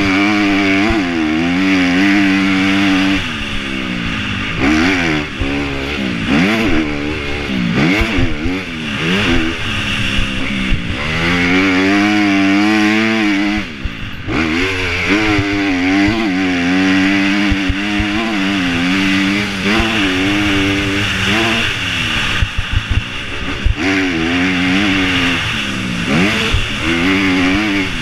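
Dirt bike engine heard from the rider's helmet camera while lapping a sand motocross track, revving up and dropping back again and again through shifts and corners, over a steady rush of wind. A few knocks come over bumps in the second half.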